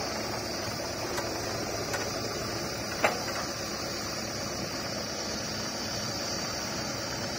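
Farm tractor's diesel engine running steadily as it pulls a trolley loaded with mud, with one sharp click about three seconds in.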